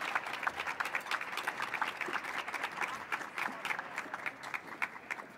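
Small audience applauding at the close of a speech, the clapping thinning out near the end.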